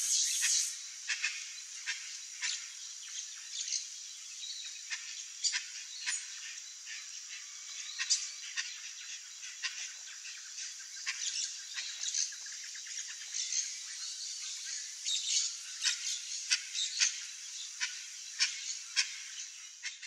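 Outdoor bird ambience: many short chirps and squawks from several birds, over a steady high hiss. Background music cuts off just under a second in.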